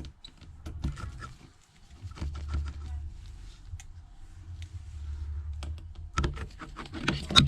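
Small clicks and taps of a precision screwdriver and tiny screws on a phone's back, with a low rumble of hands working the phone; the clicks come thick in the last second or so, the loudest just before the end.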